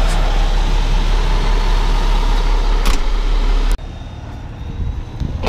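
Loud road and wind noise of a vehicle driving, with a heavy low rumble. It cuts off abruptly nearly four seconds in, giving way to a quieter low rumble.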